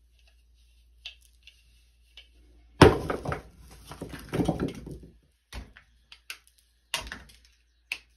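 A dry, unfired clay pot being broken apart by hand: a sudden loud crack about three seconds in, then a couple of seconds of crunching and snapping shards, followed by a few single clacks of clay pieces.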